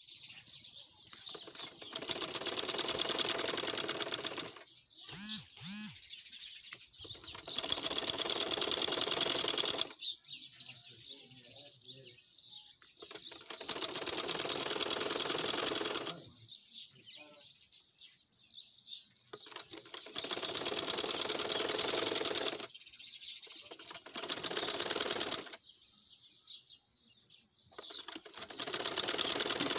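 Sewing machine running in short bursts, a rapid, even stitching rattle that starts and stops about six times, each run lasting a couple of seconds.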